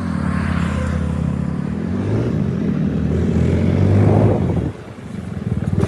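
Yamaha R15 V4's single-cylinder engine running under way, its revs dipping and then climbing steadily for a couple of seconds before dropping off sharply near the end.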